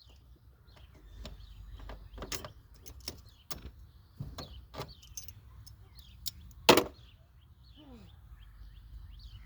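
Hand tools clicking and knocking against a car battery's terminal clamp that is stuck fast, with one louder metallic knock about two-thirds of the way through.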